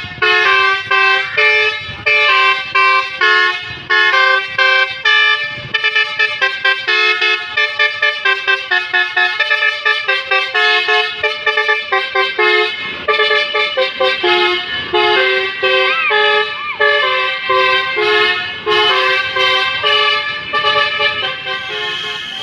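Basuri telolet bus horn, a set of multi-tone musical horns, playing a melody of short notes and chords, with a run of quick staccato notes in the middle.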